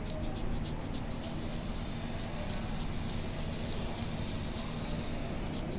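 Quick, even rhythmic rubbing strokes of hands on powdered skin during a massage-like pressure treatment, about three to four a second, over a low steady hum.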